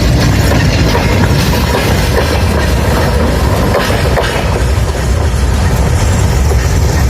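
Freight train wagons rolling past, their wheels clattering over the rail joints.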